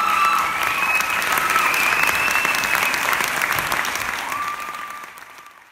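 Audience applauding in a hall, with a few high held cheers over the clapping; the applause fades out toward the end.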